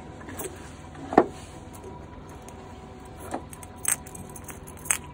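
A handful of sharp metallic clicks and knocks, the loudest about a second in, from fishing tackle and a de-hooker being worked on the hook of a small fish hanging from the line, over a steady low hum.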